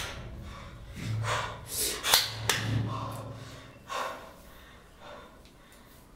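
A man's heavy, ragged breathing and gasps, several breaths about a second apart, growing fainter toward the end.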